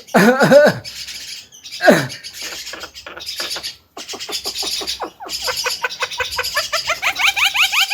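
Javan myna calling: a couple of loud sweeping whistled notes at the start, then a run of short clicks, then a fast regular series of short rising notes, about five a second, from about two-thirds of the way in.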